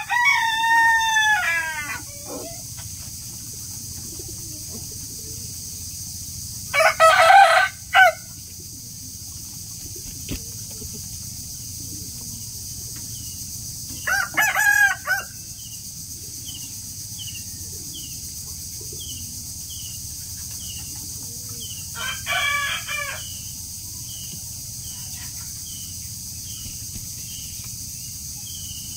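A rooster crowing four times, several seconds apart, over a steady background hiss. From about halfway on, faint short chirps repeat about once a second.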